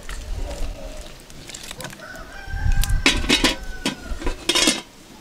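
A rooster crowing in one long call about two seconds in. Over it come a few loud short knocks and scrapes as an aluminium cooking pot is settled onto the stones of a wood fire.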